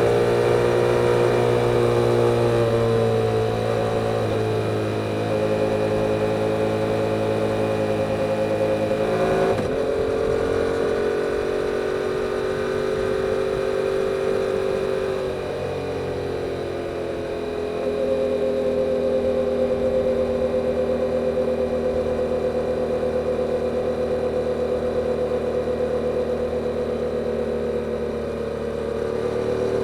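2022 Yamaha R7's 689 cc parallel-twin engine through its stock exhaust, running under way. The engine note shifts as the throttle changes: a dip in pitch a few seconds in, a quick change about ten seconds in, easing off around the middle, then a long steady cruise.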